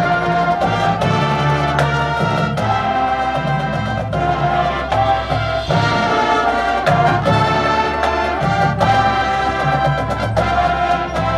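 High school marching band playing: brass holding chords that change every second or two, over drums and front-ensemble mallet percussion.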